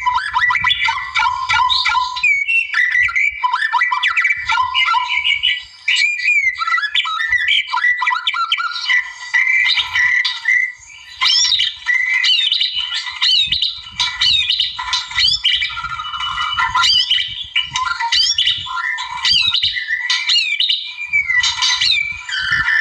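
White-rumped shama singing without let-up: a fast, varied run of clear sliding whistles and quick chattering notes, broken only by a few brief pauses.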